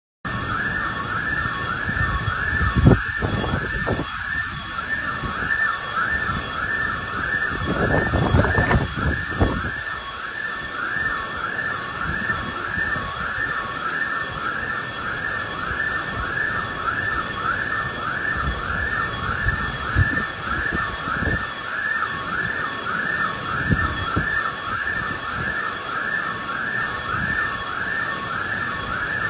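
An electronic siren-like alarm wails without a break, its pitch rising and falling rapidly and evenly, over the steady hiss of torrential rain on a flooded street. Louder low rumbles come twice, near the start and about eight seconds in.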